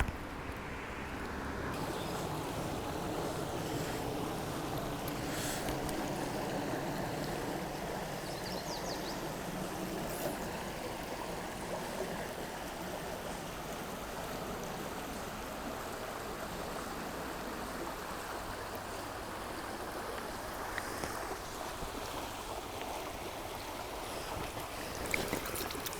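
River water running steadily, a little louder in the first half.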